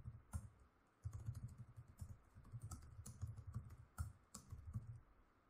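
Faint typing on a computer keyboard: a quick run of keystrokes, pausing briefly about a second in and again near the end.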